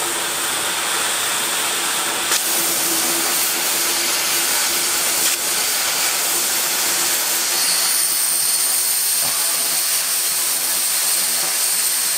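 Oxy-fuel cutting torch hissing steadily while cutting a hole through steel tubing.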